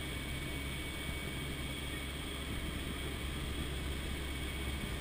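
Steady drone of a C-130 Hercules's four turboprop engines heard inside the flight deck in cruise, with a thin steady whine above it.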